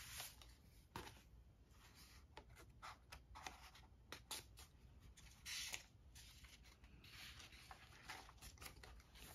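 Faint strokes of a paintbrush spreading acrylic paint on a composition notebook page, with light paper handling and scattered soft taps. One brief louder rustle comes a little past halfway.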